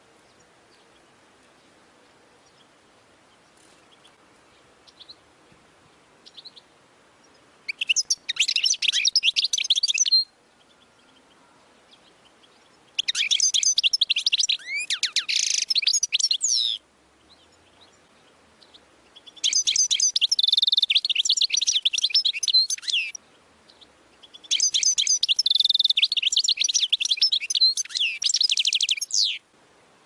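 European goldfinch singing: after a few faint chirps, four bouts of rapid, high twittering and trilling song, each a few seconds long, with short pauses between.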